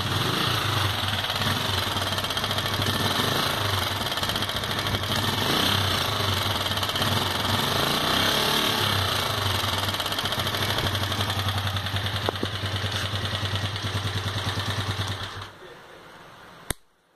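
Sundown MAX 125's single-cylinder four-stroke engine running with an excessive mechanical noise, which the owner suspects is piston skirt slap or worn valve guides. The engine cuts off near the end, followed by a single sharp click.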